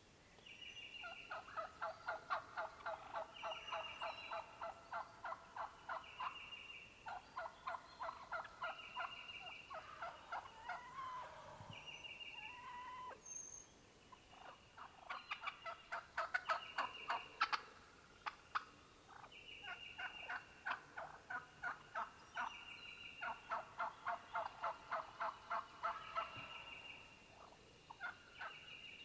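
Wild turkeys calling in long runs of quick, evenly spaced notes, about four a second, with pauses between runs; the loudest run comes just past the middle. A short, higher trill repeats every couple of seconds alongside.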